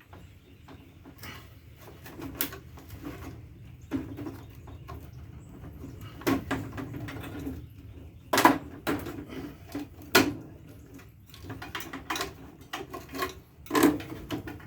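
Scattered clicks and knocks of wire connectors being pulled off the parts inside a microwave oven during scrapping, with the loudest knocks a little past halfway and near the end.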